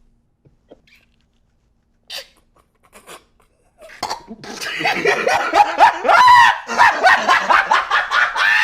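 A dog barking and yelping in a loud, rapid run of calls that glide up and down in pitch, starting about four seconds in after near silence.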